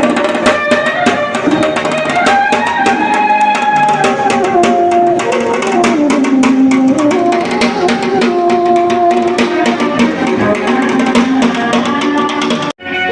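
Music with a drum beat and a sliding melody line, played loud; it cuts off abruptly near the end.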